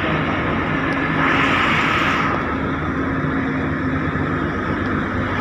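A road vehicle running steadily while being driven, its engine hum under a constant rush of road and wind noise. A swell of hissing noise rises between about one and two seconds in and then fades.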